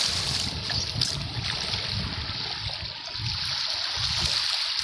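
Small waves lapping and trickling over a pebbly beach: a steady wash of water.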